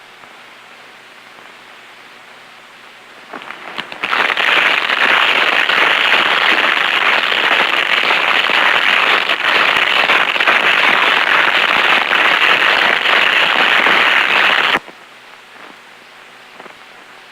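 Shielded metal arc (stick) welding arc crackling steadily as an electrode burns along a horizontal weld. The arc catches about three seconds in, runs for about eleven seconds, and cuts off abruptly.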